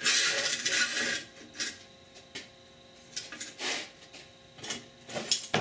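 Sheet-metal patch pieces and hand tools being handled on a workbench: a scraping slide of metal over metal for about the first second, then scattered clanks and clinks.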